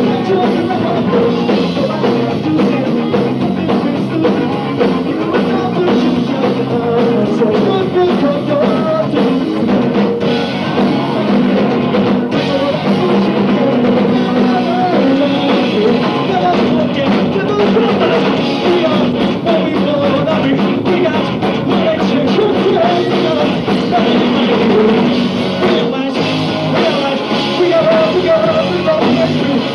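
Live punk rock band playing loud and fast, with electric guitars, a drum kit and a sung lead vocal.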